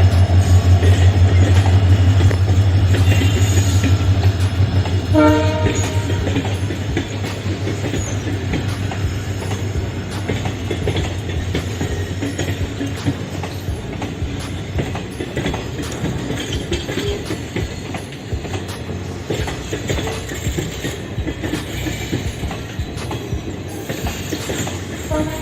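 WDP4D diesel locomotive, its 16-cylinder EMD two-stroke engine running with a deep pulsing drone, passing close at low speed and giving one short horn blast about five seconds in. Then the coaches roll slowly past, wheels clicking steadily over the rail joints as the engine sound fades.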